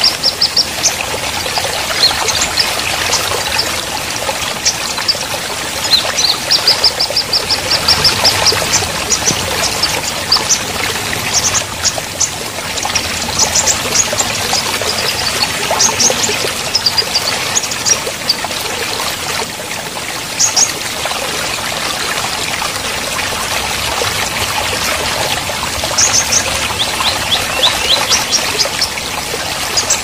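Shallow rocky stream running over stones in a steady rush of water. Short, quick high chirps of small birds come in runs several times over it.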